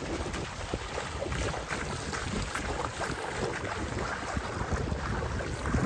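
Water sloshing and splashing close to the microphone, a dense run of small crackles and splashes with some wind on the microphone.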